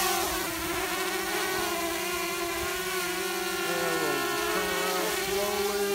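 DJI Mavic Air quadcopter hovering low and close, its four propellers giving a steady high buzzing whine of several stacked tones. The pitch wavers briefly about four seconds in as the motors adjust.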